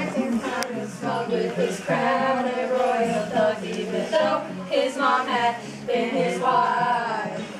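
A group of voices singing a song together, mostly without instrumental backing.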